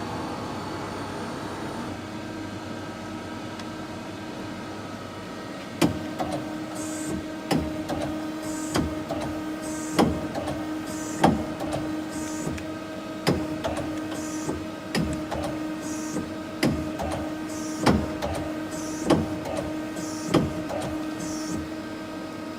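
Yamazaki Mazak SQT-10MS CNC lathe running with a steady hum. From about six seconds in, a sharp clunk comes roughly every second and a quarter, with a short hiss between clunks, as the tool turret indexes station to station.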